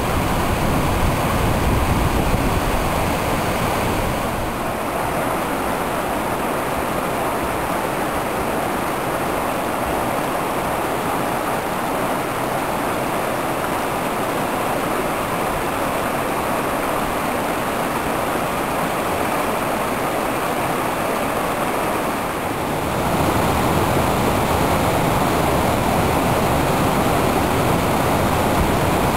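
A stream flowing: a steady rush of water. The sound shifts abruptly about four seconds in and again near the end, and is heavier and fuller in the final stretch.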